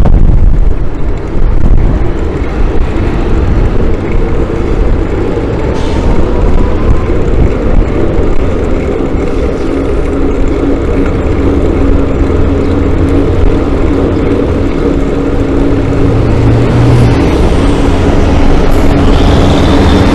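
Vehicle travelling along a road: a loud, steady low rumble with a low engine-like hum that sets in about halfway and strengthens near the end.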